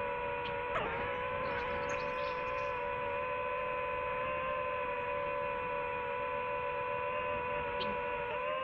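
DJI FPV drone's motors and propellers whining steadily in flight, a hum of several tones at once. The pitch dips briefly about a second in and wavers again near the end.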